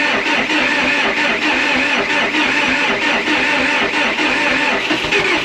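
Early-1980s International TD8E bulldozer's four-cylinder turbo diesel turning over and firing on a spritz of ether, a cold start after long sitting, with a steady rhythmic clatter.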